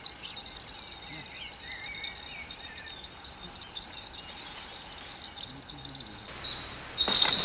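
Crickets chirring steadily in the grass, with a bird chirping faintly a couple of seconds in. Just before the end a much louder rush of noise with knocks cuts in suddenly.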